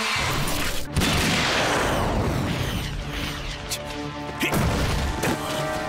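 Cartoon battle sound effects over dramatic background music: a loud explosion-like hit about a second in trails off into a long crashing rumble, followed by several sharper impacts near the end.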